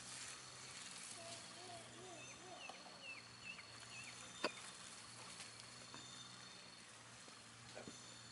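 Faint field ambience with a steady thin insect drone. Between about one and four seconds in comes a run of short, quickly bending chirping calls, and a single sharp click falls about halfway through.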